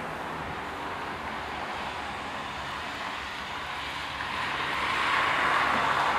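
Steady ambient outdoor noise, an even rushing hiss with no distinct events, swelling louder about five seconds in.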